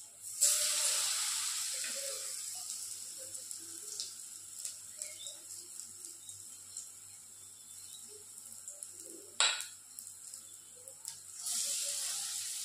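Batter-coated ridge gourd slices dropped into hot oil, each setting off a loud sizzle that fades over several seconds: one about half a second in, another near the end. A sharp click sounds a little past nine seconds in.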